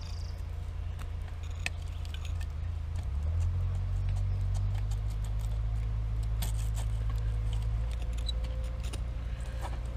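Small scattered clicks and taps of screws and an outlet cover plate being worked loose, over a steady low engine drone from outdoor machinery that shifts in pitch about three seconds in and again near the end.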